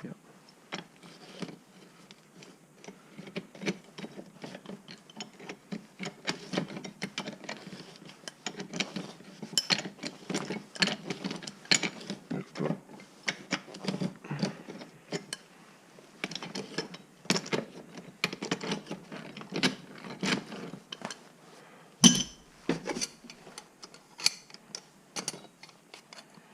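Irregular metal clicking and clanking as a rust-seized Ridgid pipe wrench is worked loose, its freshly WD-40-soaked parts starting to move, with one sharper knock about 22 seconds in.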